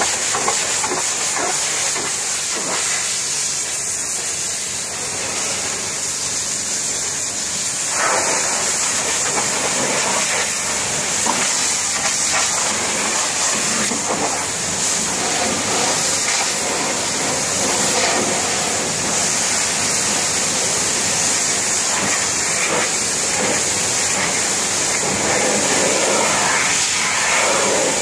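High-pressure washer jet hissing steadily as water is sprayed over a backhoe loader's steel bodywork, the tone shifting slightly as the spray moves between surfaces.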